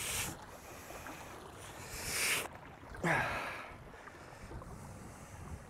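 Wind buffeting the microphone at the shoreline over the lapping of small waves, with a few short rushing bursts, the loudest about three seconds in.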